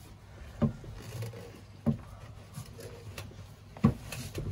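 Three dull knocks about a second or two apart, with faint rubbing between: a ceramic toilet pan being shifted and pushed into place against its pan connector.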